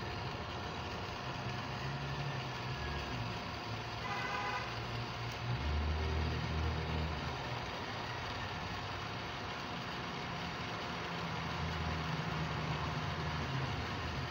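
Electric jet water pump, a 1 horsepower motor, running steadily as it builds pressure in the tank during a test run, with a low hum that swells for a while in the middle.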